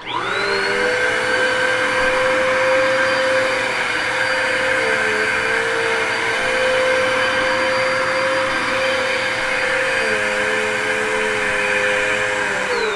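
An older household vacuum cleaner switched on, its motor whining up to speed at once and running loudly and steadily as it is pushed over carpet to pick up baking soda, its pitch dipping twice along the way. The motor starts winding down right at the end.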